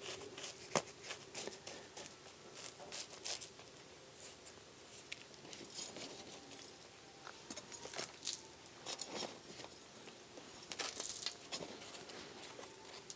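Bark-and-perlite potting mix being handled and pressed by fingers into a clear plastic cup: faint, irregular scratching and crackling with small clicks, over a low steady hum.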